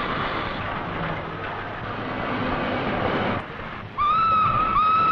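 A steady hiss of noise, then about four seconds in a steam locomotive's whistle sounds a loud, clear single note, breaks off briefly and starts again.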